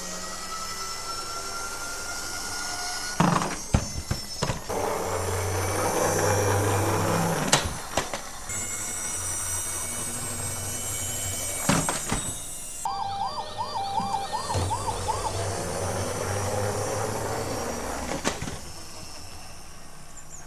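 Emergency-vehicle sirens in changing patterns: slow gliding wails, then a fast yelp rising and falling about three times a second about two-thirds through, with several sharp clicks and knocks in between.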